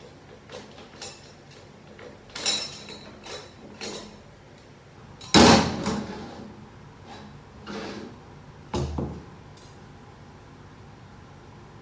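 Metal parts of a 09G automatic transmission clanking and clinking as they are handled and set down during disassembly: about half a dozen separate knocks, the loudest about halfway through.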